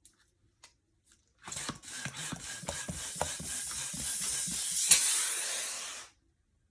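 Long 260Q latex twisting balloon being pre-stretched: a rush of air with rubbery creaks and crackles that swells for about four seconds and then stops suddenly.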